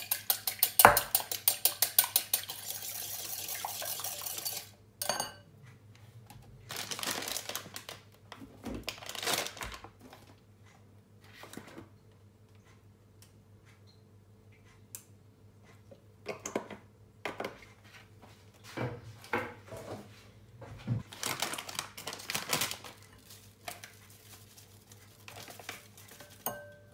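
A wire whisk beating an egg in a glass bowl: a fast run of metal-on-glass clicks for the first few seconds. After that come scattered clinks against the bowl and short rustles as a plastic packet of pancake mix is handled and poured.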